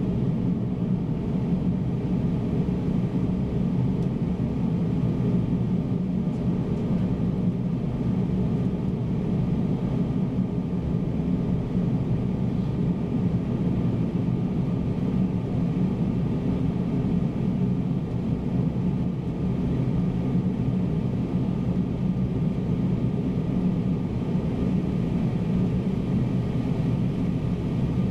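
Steady flight-deck noise of a Boeing 767-300ER on final approach: airflow and engine noise heard inside the cockpit as an even low rumble with faint steady tones above it.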